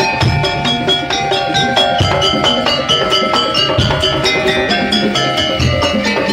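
Percussion-led music: drums on a quick, even beat under fast ringing struck notes, like a Madurese daul or parade drum band.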